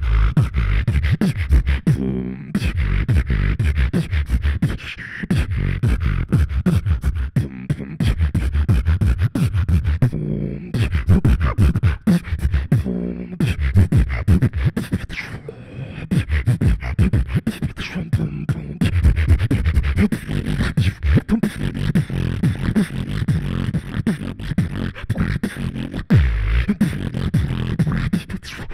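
Solo beatboxing into a handheld microphone, amplified: fast percussive mouth clicks and hits over deep bass tones that step from note to note, with a few brief breaks.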